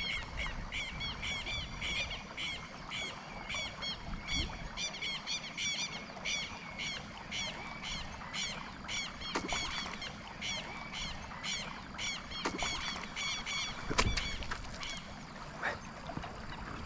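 A steady run of short, high chirping animal calls, several a second, which thins out near the end. One sharp knock stands out about fourteen seconds in.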